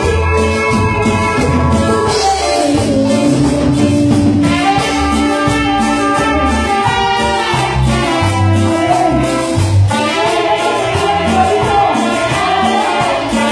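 Live Latin band playing loudly: trumpets carry the melody over drums and bass, with a woman singing.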